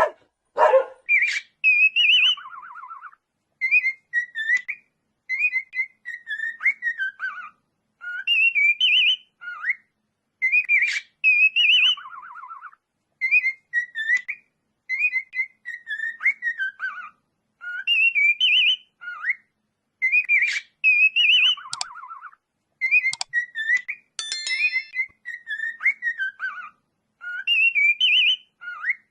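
A bird whistling short phrases that glide up and down, repeated about every two seconds, several ending in a quick trill.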